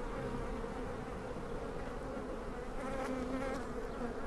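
Honeybees buzzing steadily around an opened hive, a continuous low hum from the colony.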